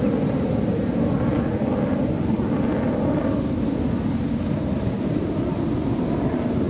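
Steady low roar of distant F-16 jet engines, with wind buffeting the microphone.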